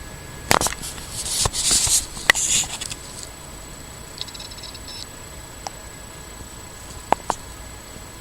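Sleeping cat snoring: an airy breath sound from about half a second in to about three seconds, mixed with a few sharp clicks. A couple of faint clicks follow near the end.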